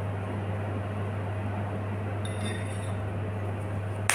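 A steady low hum throughout, with a faint rattle a little past two seconds in as dried basil is shaken from a plastic spice bottle. Near the end a single sharp clink of a metal spoon against the glass mixing bowl.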